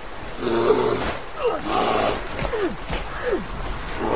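Bear roaring and growling in a scuffle, with several short yelps that fall quickly in pitch, over a steady rushing background.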